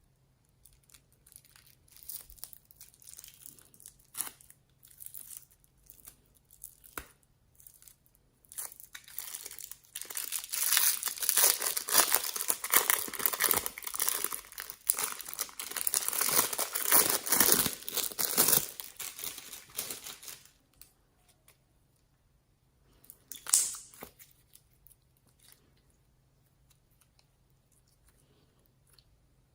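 Crinkling and tearing of a crinkly material being handled, dense and continuous for about ten seconds in the middle, with scattered small rustles and clicks before it and one short crackle near the end.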